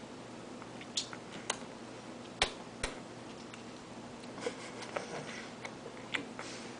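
Toddler eating spaghetti with her fingers: a few scattered soft clicks and taps, mouth and hand noises, over a quiet room background, the sharpest pair about two and a half and three seconds in.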